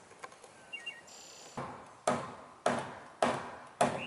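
Hammer blows on wood, several strokes about half a second apart starting about a second and a half in, each sharp and quickly dying away, fastening a bird block into the roof framing.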